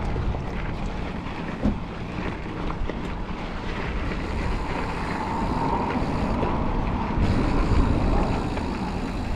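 Mountain bike riding noise: wind buffeting the camera microphone over a steady low rumble of tyres rolling on a dirt trail, with a few faint clicks and rattles.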